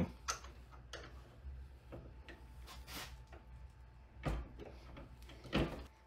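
Scattered light metallic clicks and knocks of hands working at an RCBS Rock Chucker single-stage reloading press and its die. Two louder knocks come in the last two seconds.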